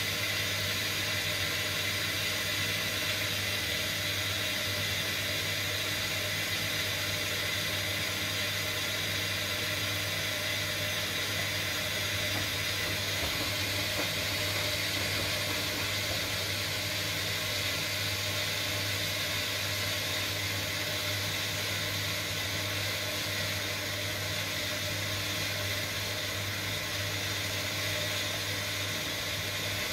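Front-loading washing machine on its final rinse: the drum turning a load of shirts through the rinse water, with a steady motor hum under the wash of water.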